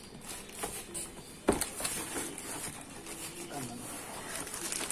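Hands rummaging in a cardboard laptop box: light rustling and scraping of cardboard and packing, with one sharp knock about one and a half seconds in.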